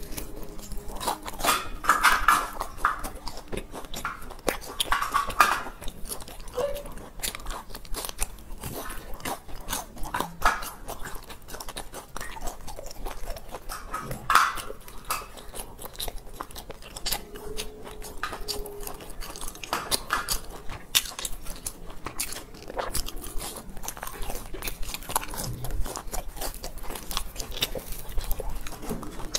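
Close-miked biting and chewing of a fried round cake with a crisp golden crust: steady crunching with many small crackles, and a louder bite every few seconds.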